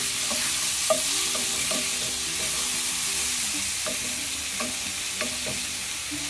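White mushrooms sizzling as they fry in butter and olive oil in a pan on high heat. They are stirred with a utensil that clicks against the pan about half a dozen times.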